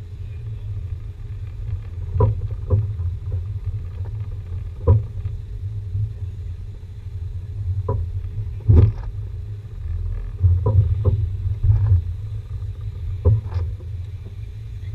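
Jeep Renegade Trailhawk crawling slowly over a rutted dirt off-road course: a steady low rumble with irregular knocks and thumps as the body and suspension jolt over bumps, the loudest about nine seconds in.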